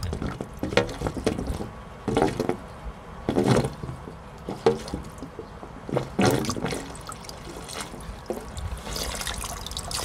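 Water and trapped air sputtering out of an outlet hose into a floor drain in irregular spurts, settling to a steadier flow near the end. Mains water pressure is pushing the trapped air out of the heating pipes, the same as bleeding air from the system.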